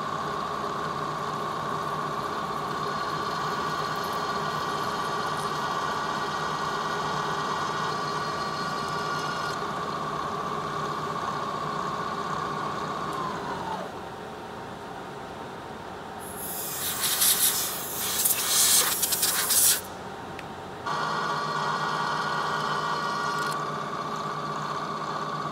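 Lagun milling machine spindle running with a steady whine. About halfway in the whine drops in pitch as a 17/64 drill bit is fed into the metal, with several seconds of loud, harsh cutting noise. The whine then returns to its free-running pitch.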